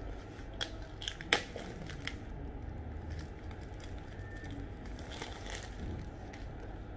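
Clear plastic wrapping being torn and pulled off a new paperback book, crinkling. A few sharp snaps come in the first two seconds, the loudest about a second and a half in, then softer crackling as the wrapper is peeled away.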